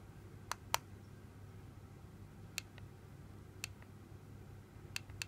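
Push buttons on a Smoant Charon Mini box mod clicking as they are pressed to work through its menu. The clicks are faint and separate and come at uneven gaps, then quicken into a run near the end.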